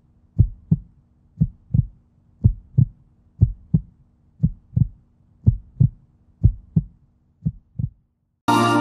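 Heartbeat sound effect: paired low thumps about once a second, over a faint steady hum. The beats stop about eight seconds in, and music starts just before the end.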